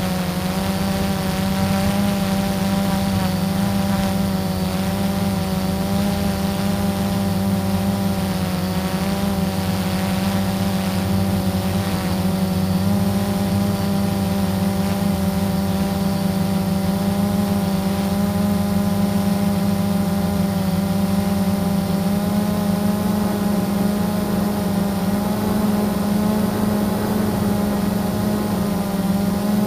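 Blade 350 QX quadcopter's brushless motors and propellers humming steadily in flight, heard close up from the drone's own camera; the pitch wavers slightly as the motors adjust.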